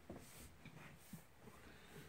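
Near silence: faint room tone with a few soft clicks.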